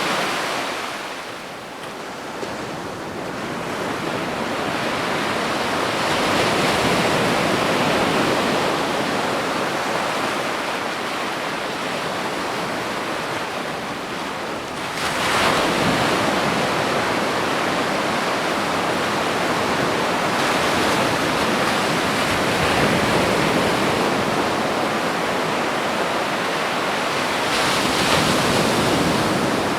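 Ocean waves washing onto a beach, a steady rush of surf that dips briefly near the start and swells up again suddenly about halfway through and near the end, as new waves break.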